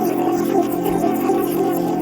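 Music with a steady, droning low tone.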